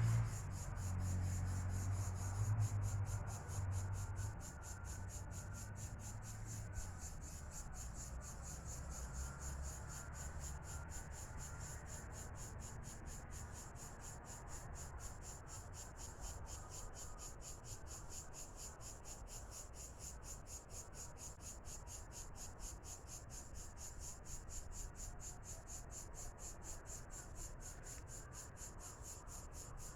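An insect calling: a high-pitched rasping call of rapid, evenly spaced pulses that keeps going without a break. A low rumble sits underneath at the start and dies away within the first several seconds.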